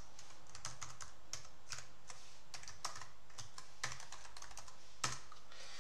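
Computer keyboard typing: irregular key clicks as a line of text is typed, with one louder keystroke about five seconds in.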